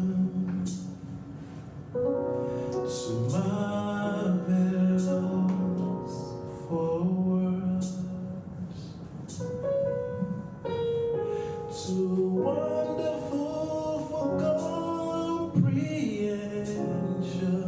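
Slow worship music: a voice singing long held notes, gliding between pitches, over a soft accompaniment.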